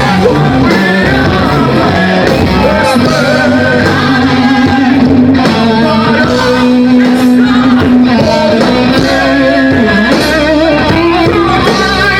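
Live rock band playing with a held sung vocal line over guitars and drums, in a large reverberant hall.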